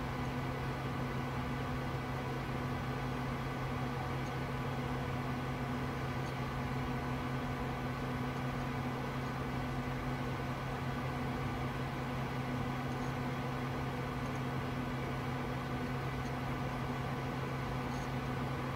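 PC cooling fans and power supply running: a steady hum with a few constant tones over a light hiss, unchanging while the machine sits under a memory stress test.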